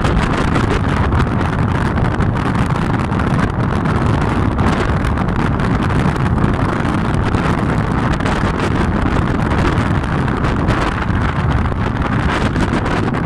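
Strong wind buffeting the microphone: a loud, steady rushing rumble with quick gusty flutters.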